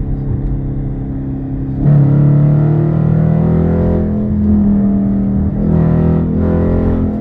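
Dodge Challenger R/T's 5.7-litre Hemi V8 with a mid-muffler delete. It runs steadily, then about two seconds in opens up under acceleration: the exhaust gets suddenly louder and the engine note climbs. The note dips briefly twice on the way up.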